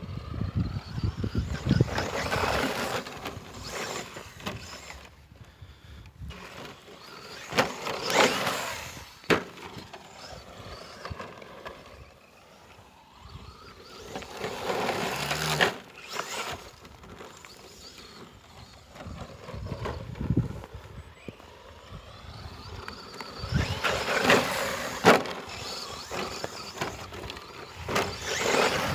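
Brushless-motored 1/10 ECX Torment short-course RC truck driving off road. It comes past in loud surges of motor whine and tyre noise several times, with the pitch rising and falling with the throttle in between. There are a few sharp knocks.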